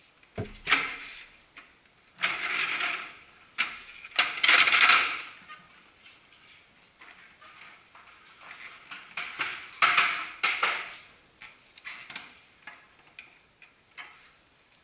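Plastic clunks, scraping and sliding from an Olivetti d-Copia 35 copier as its side door is opened and its top paper cassette is pulled out, in several separate bursts with lighter clicks between.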